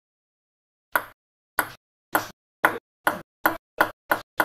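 Ping-pong ball bouncing on a table after being dropped: a run of about nine sharp clicks, starting about a second in and coming closer and closer together as each bounce loses height.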